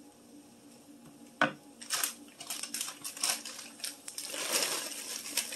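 A sharp knock about a second and a half in, then the crinkle of a plastic bag and a run of small clicks and patters as frozen bell pepper and onion strips are poured from the bag into a frying pan.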